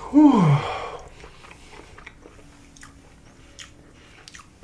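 A person eating sushi close to the microphone. A short voiced exclamation falling in pitch comes right at the start and is the loudest sound, then soft chewing with scattered wet mouth clicks.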